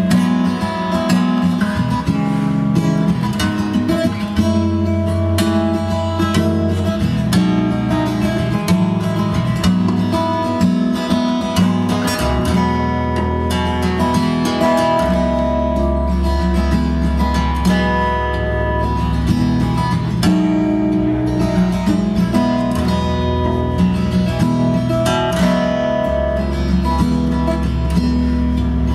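Acoustic guitar music, plucked and strummed over sustained bass notes, played back through B&W 686 S2 bookshelf speakers driven by a Muzishare X7 KT88 push-pull valve amplifier.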